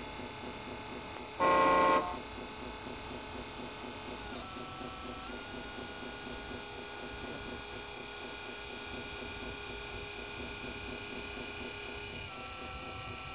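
Radio-controlled model tipper truck's electric drive whining steadily as its dump body rises to tip a load of soil, with small shifts in pitch after about four seconds and again near the end. A brief, loud pitched tone sounds once about one and a half seconds in.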